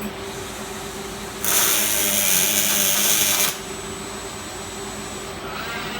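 Fronius CMT welding arc on steel tube: a short weld of about two seconds, a loud even hiss that starts abruptly about a second and a half in and cuts off sharply. A steady machine hum from the robotic welding cell runs underneath.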